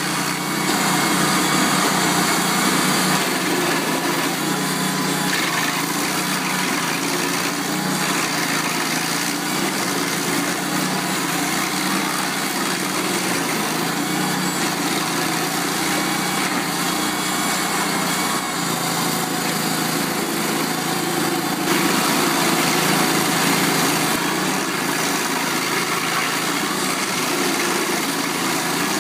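Vermeer SC252 stump grinder running under load, its carbide-toothed cutter wheel grinding conifer roots and soil into chips. A steady engine note sits under dense, continuous grinding noise, which gets a little louder for a couple of seconds past the middle.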